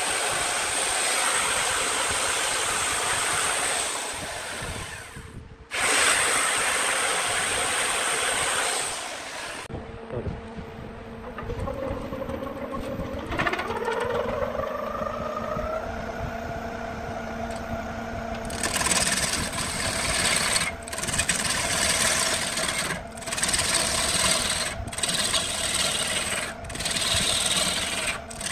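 A chainsaw cuts into a cedar log turning on a wood lathe, with a short break around five seconds in. After it stops, the lathe motor runs and rises in pitch as the log spins up. From near the end of the first two-thirds, a turning gouge cuts into the spinning wood in passes about two seconds apart over the steady motor hum.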